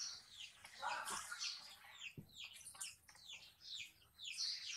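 Small birds chirping: quick, repeated short chirps that fall in pitch, a few a second, with a single soft knock about two seconds in.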